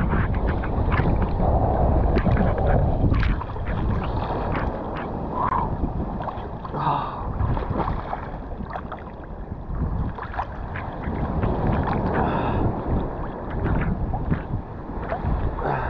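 Seawater sloshing and splashing against an action camera held at the waterline, with many small sharp splashes and a low rumble of wind and water on the microphone.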